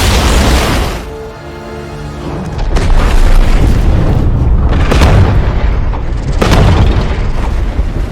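Monster-battle sound effects over film music: deep booming impacts and rumbling that surge several times, with a pitched cry or tone heard for a moment about a second in.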